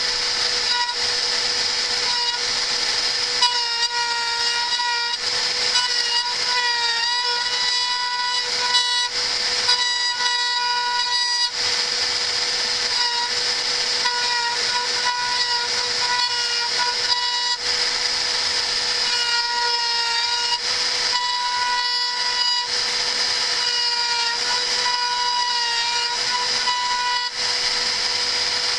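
CNC router spindle running at high speed, cutting a logo into a laminate floorboard: a steady high whine over a hiss of cutting. The pitch dips slightly now and then as the bit takes load.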